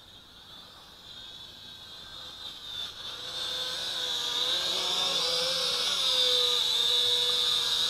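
SJRC X300-1C quadcopter's motors and propellers whirring with a steady high whine, growing louder as it flies in close. Its pitch wavers about halfway through as the throttle changes.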